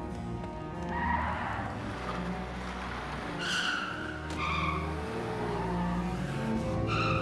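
Car tyres squealing in several short bursts, about four in all, over the steady low drone of engines running hard.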